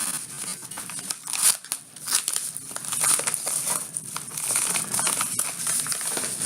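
Packaging being crinkled and torn open by hand to unwrap a mailed paperback book, a continuous irregular rustling and crackling.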